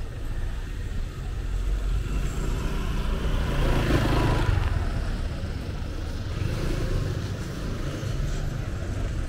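Street traffic: a steady low rumble of motor vehicles, with one vehicle growing louder and fading away about four seconds in.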